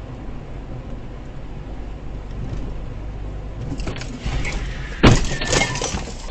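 Road and engine rumble inside a moving car, then about five seconds in a loud crash as the car runs into a pickup truck, followed by about a second of crunching.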